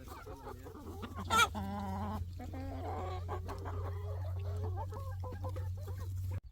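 Chickens clucking, with a string of short calls and one louder call about a second and a half in, over a steady low hum that cuts off just before the end.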